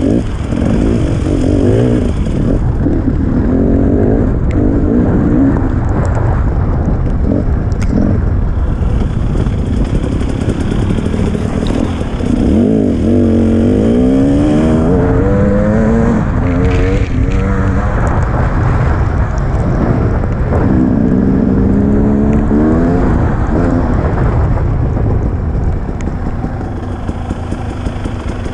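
Dirt bike engine revving hard and easing off repeatedly, its pitch sweeping up and down in long swells as the throttle is worked, loudest through the middle.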